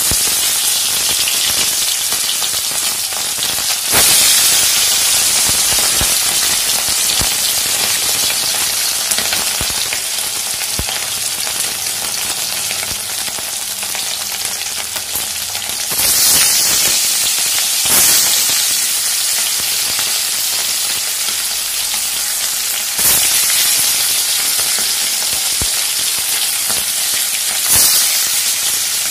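Pieces of marinated khoira fish, a hilsa-like fish, frying in hot mustard oil in a kadai: a steady loud sizzle that flares up suddenly several times as more pieces go into the oil.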